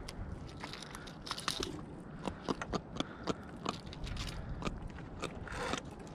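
Irregular sharp clicks, taps and crunching scrapes of fishing tackle being handled aboard a plastic sit-on-top kayak: rod, spinning reel and popper lure knocking and rattling, with a low rumble underneath.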